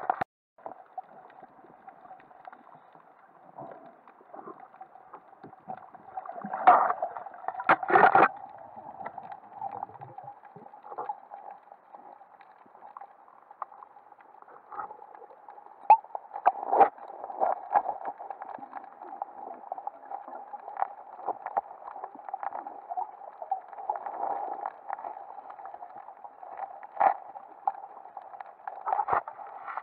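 Underwater sound picked up through a camera's waterproof housing: a steady muffled hum with scattered clicks and crackles, and two louder rushes about seven and eight seconds in.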